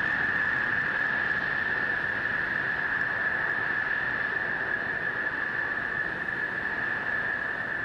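Distant roar of the H-IIA rocket climbing under its LE-7A main engine and solid rocket boosters, a steady rushing noise with a constant high hiss, slowly fading.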